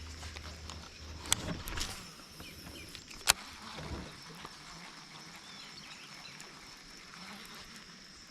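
Quiet outdoor ambience with a steady high-pitched whine, a low hum in the first two seconds, and two sharp clicks, about one and three seconds in.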